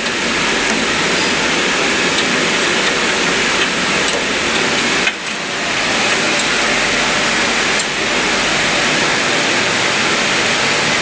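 Water running in a steady rush, likely from the water heater's plumbing, broken off briefly about five seconds in.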